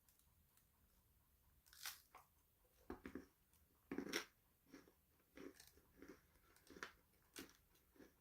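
A person biting into crisp, crunchy food, close to the microphone, and then chewing it. A few sharp crunches start about two seconds in, the loudest comes near the middle, and steady chewing follows, about one and a half chews a second.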